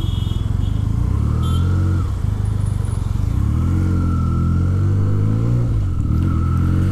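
Motorcycle engine accelerating through the gears: its pitch climbs, drops at a shift about two seconds in, climbs again and drops once more near the end.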